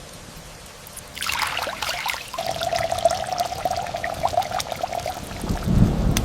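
Water pouring and splashing, with a steady mid-pitched tone through the middle and a low rumble near the end.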